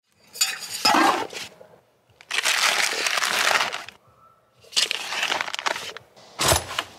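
Rustling and crinkling handling noise as gear is picked up and packed, in four separate bursts, the last ending in a thump.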